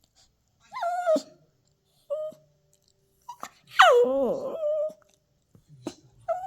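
Toy poodle puppy whining and howling in a tantrum: three drawn-out calls, the last and longest sliding down in pitch and then holding steady.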